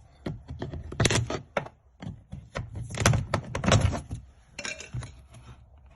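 Plastic trim pieces on a Range Rover Evoque's inner door frame being prised off with a trim tool: a run of plastic clicks, rattles and snaps, the sharpest about a second in and around three seconds in.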